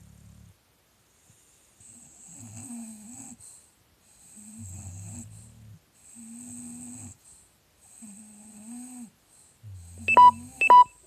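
English bulldogs snoring: low snores about every two seconds, each with a hiss on top. Near the end come two short, loud, high squeaks about half a second apart.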